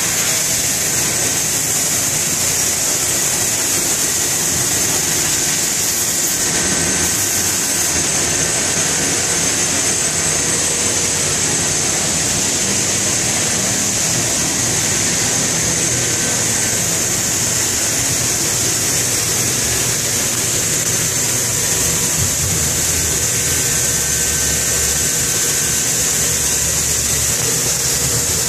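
Haas MDC-500 CNC mill drill center running: a loud, steady machine noise with a strong even hiss over a low hum.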